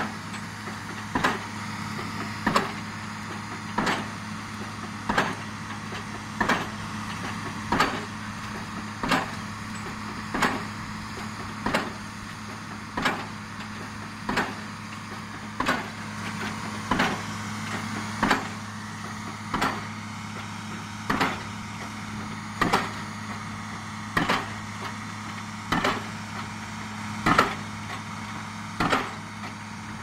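7-tonne hydraulic pile hammer striking the head of a 500 mm PHC concrete pile at an even pace, about one sharp impact every 1.3 seconds, over the steady hum of the piling rig's engine.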